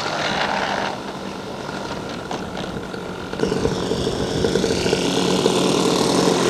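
Scale model airplane engines running. About three and a half seconds in, a nearer engine comes in, louder and steady, and keeps building slowly.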